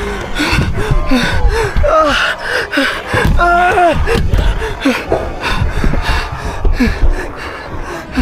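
A person's voice in short gasps and cries, over scuffling noise.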